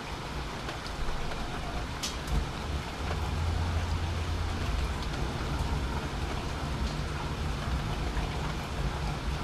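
Steady rain falling, with a few sharp ticks of drops. A low rumble builds about a second in and is loudest around the middle.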